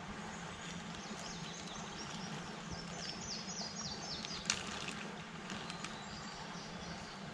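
A bird singing a quick run of short, high, falling notes, over a steady low hum of outdoor background noise. A single sharp click comes a little after the song.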